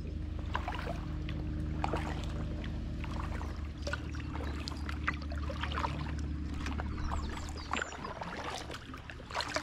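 Kayak paddle strokes: the blades dip into the water and drip, making scattered small splashes and trickles. Underneath runs a steady low hum that fades out near the end.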